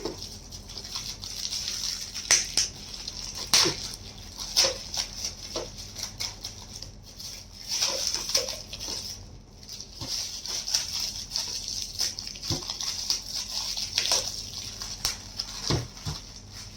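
Gift wrapping being torn and crinkled by hand as a present is opened: irregular crackles, rustles and small knocks.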